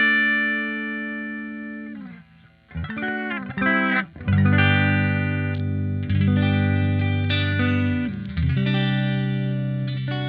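Clean electric guitar on the bridge humbucker, played through a NUX MG-30 multi-effects unit set to a Fender Deluxe Reverb amp model with an impulse response. A chord rings out and fades, there is a brief gap about two seconds in, then a quick run of notes, then chords struck and left to ring.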